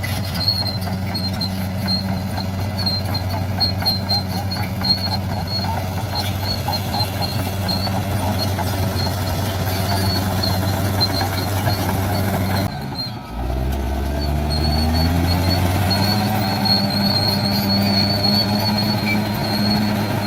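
Bulldozer's diesel engine running steadily, with a faint high squeal coming and going over it. About 13 seconds in the sound breaks off briefly, then the engine comes back low and climbs in pitch as it revs up.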